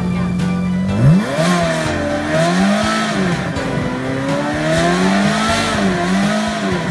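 Ferrari V8 sports car standing still and being revved. About a second in, the engine note climbs sharply from idle, then rises and falls about four times with repeated throttle blips.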